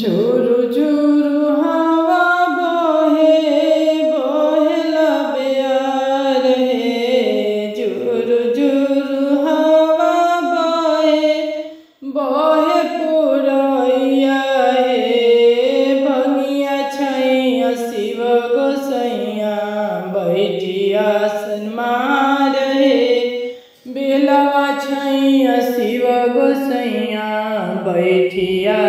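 A woman singing a Bhojpuri Shiv charcha bhajan, a single voice in long melodic phrases with no clear accompaniment, pausing briefly about 12 seconds and 24 seconds in.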